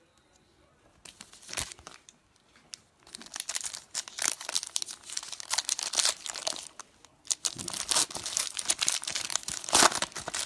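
Foil trading-card pack wrapper crinkled and torn open by hand, in irregular bursts of crackling, the loudest near the end.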